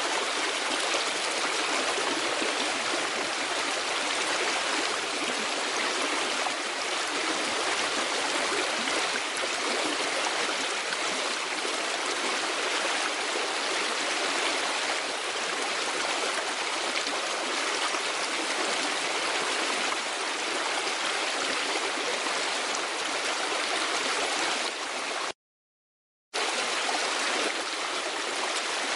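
Steady rushing noise of running water, even and unbroken, that cuts out to full silence for about a second near the end before resuming.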